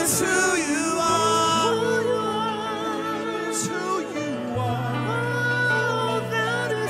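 Worship music: a voice singing in slow gliding phrases over long held low bass notes.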